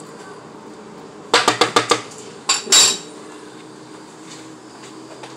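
A quick run of about six sharp knocks about a second in, then two louder knocks half a second later: hard objects clattering against dishes.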